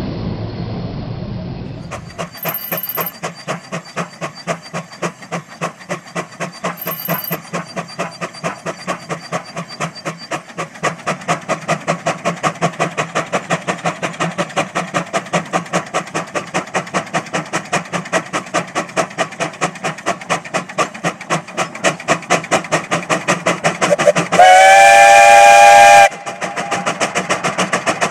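Steam traction engine climbing a steep hill under load, its exhaust chuffing in a steady rhythm of about four beats a second. About three seconds before the end its steam whistle blows once, loud, for about a second and a half. During the first two seconds a jet engine's roar is heard, then it cuts off.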